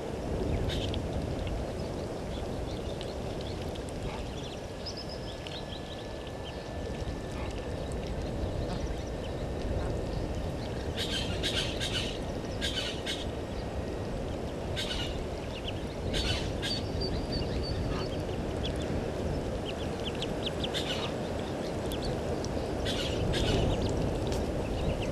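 An Egyptian goose family with goslings feeding in shallow water: short bursts of high, scratchy sounds come in clusters, mostly in the second half, over a steady low background rumble.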